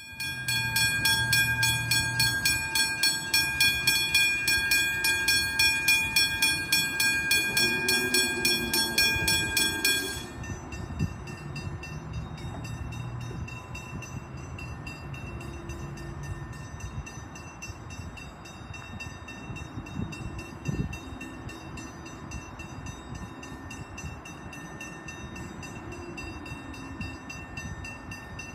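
Railway level-crossing bells (hybrid crossing bells) ringing in rapid, even strokes with a clear metallic ring. They stop suddenly about ten seconds in, leaving a fainter bell ringing on over a low rumble.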